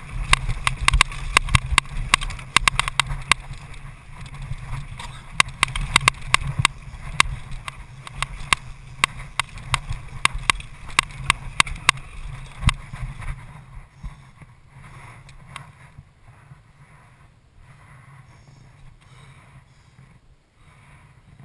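Downhill mountain bike speeding down a dirt trail: tyre rumble and wind on the microphone, with a rapid run of sharp rattles and clacks as the bike hammers over bumps. About 13 seconds in, the noise drops off as the bike slows, leaving only faint, occasional rattles.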